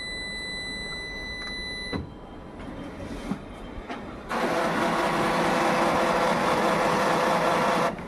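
Ricoh MC 2000 colour laser printer humming instead of printing. The hum comes in loud and steady a little over four seconds in and cuts off suddenly near the end, with a steady high tone in the first two seconds. The hum is the printer's fault: it makes this sound but does not print.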